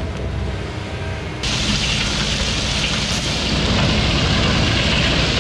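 Komatsu PC170 excavator's diesel engine running as its bucket tips out sand, then, about a second and a half in, a loud, steady hiss of crushed stone pouring and sliding out of a tri-axle dump truck's raised box takes over, with a diesel engine running underneath.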